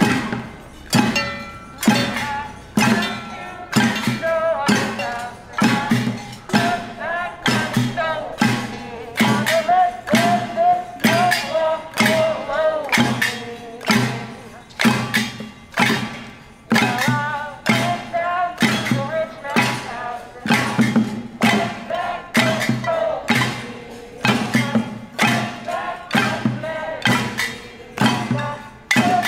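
Protesters beating metal pots and pan lids with spoons and a plastic bucket as a drum in a steady beat, with crowd voices singing along in places.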